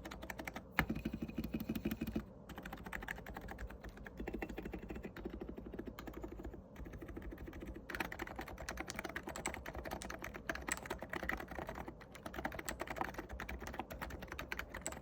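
Fast typing on a Cox Endeavour 50g tenkeyless electrostatic capacitive keyboard with SA keycaps and freshly lubricated stabilizers, keystrokes clacking in a dense continuous stream. About a second in there is a louder, deeper run of strokes lasting about a second and a half.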